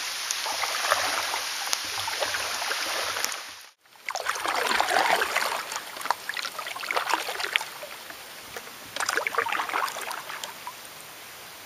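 Steady hiss of rain falling on a lake's surface, which cuts off abruptly a few seconds in. Then a canoe is paddled with a double-bladed paddle: water swishes and drips with each stroke, a few strokes about two seconds apart.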